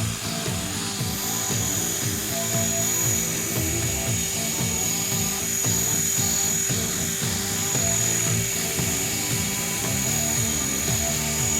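Electric 500-size RC helicopter flying, with a steady high-pitched whine and a steady hum, under background music.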